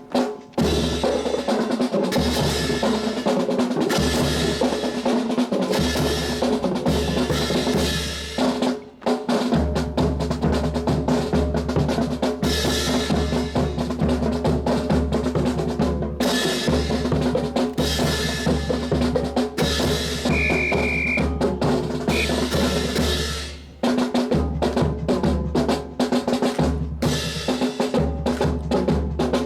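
Marching snare and bass drums playing a steady cadence for a rifle drill, breaking off briefly about nine seconds in and again near twenty-four seconds.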